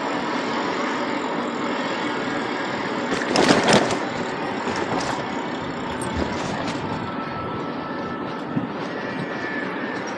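Steady city traffic and road noise heard from a moving bicycle, with a brief louder rush about three and a half seconds in.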